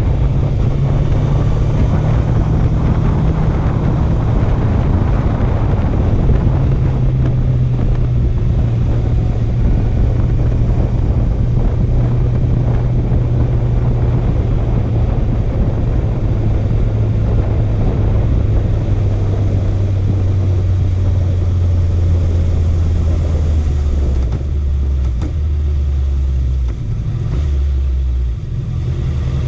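Honda CB650F's inline-four engine running under a rider, with road and wind noise. The engine note holds, then sinks slowly as the bike slows, drops in a few steps near the end, and picks up again at the very end.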